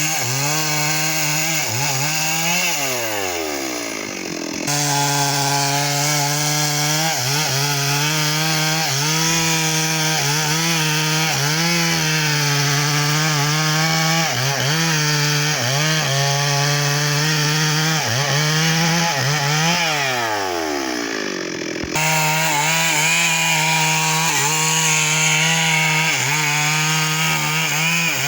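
Stihl MS 382 two-stroke chainsaw cutting mahogany at high revs, its pitch dipping again and again as the chain bites into the wood. Twice the revs slide down over a couple of seconds, then the saw is back at full throttle.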